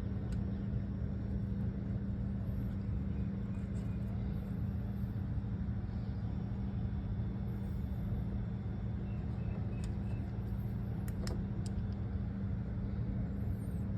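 Car engine idling steadily, a low even hum, with a few faint clicks about ten to eleven seconds in.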